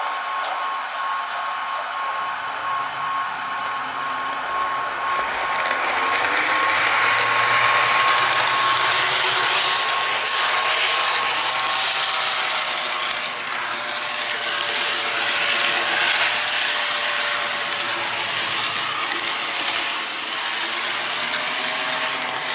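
Bowser ALCO C-636 model locomotive running, its motor and truck gears whirring and its wheels rolling on the track; the locomotive is new with little run time and is being checked for gear noise. The whirr grows louder about a quarter of the way in as the locomotive draws near, and a steady high whine stops about halfway through.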